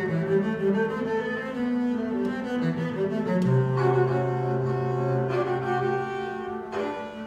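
Three double basses bowed together in a trio, holding and changing sustained notes in several parts at once. A long low note is held through the middle while the upper parts move, and the texture thins out near the end.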